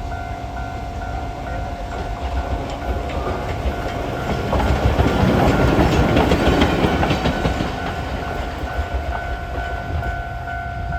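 Level-crossing warning bell ringing steadily at about two strokes a second. Over it, the JNR Class D51 steam locomotive No. 498 rolls past, swelling to its loudest about five to seven seconds in, with its wheels clicking over the rails.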